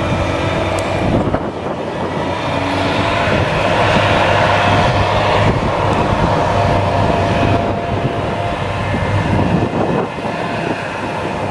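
Claas Jaguar 970 self-propelled forage harvester running under load, chopping whole-crop cereal and blowing it into a trailer, together with the tractor pulling the trailer alongside. A steady, loud machine drone with a steady whine over it.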